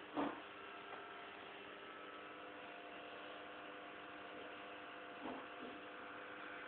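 A curled-up sleeping dog making faint sleep noises: one short, louder sound right at the start and two soft short ones a little past five seconds in, over a steady electrical hum.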